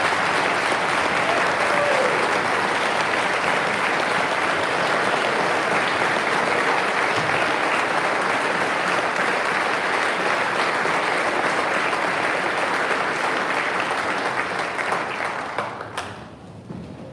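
Audience clapping steadily, a crowd's applause that tapers off and stops near the end.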